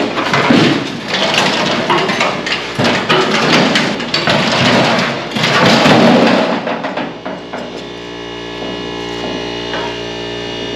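Loud, dense banging and clattering, like hammering on metal, for about the first seven seconds. Then it gives way to background music with steady held tones.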